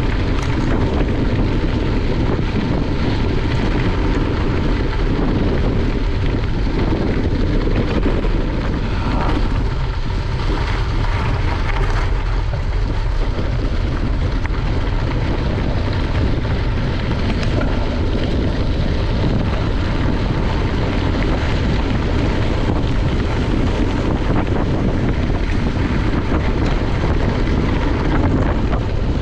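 Wind buffeting the microphone of a camera on a moving bicycle: a steady rushing noise, heaviest in the low end.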